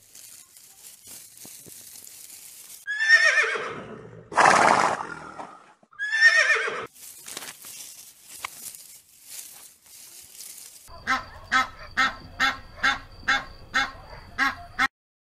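Three loud animal calls about three seconds in, each sliding down in pitch. Near the end, Egyptian geese give a regular honking call, about two honks a second for some four seconds.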